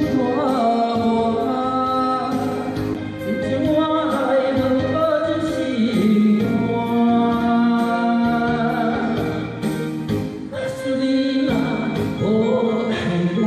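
Voices singing a slow Taiwanese-language ballad together over backing music, holding long notes.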